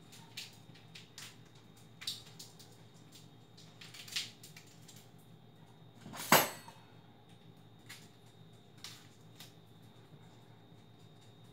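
Kitchen clatter of dishes and utensils being handled: scattered light clicks and knocks, with one louder clank about six seconds in.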